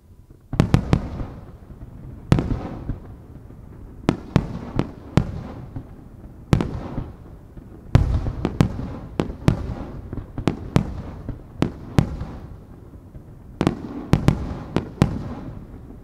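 Aerial firework shells bursting one after another, each a sharp bang trailing into a rolling echo, some coming in quick clusters of two or three.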